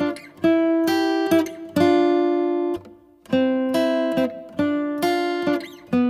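Music: acoustic guitar strumming chords one after another, with a brief break about halfway.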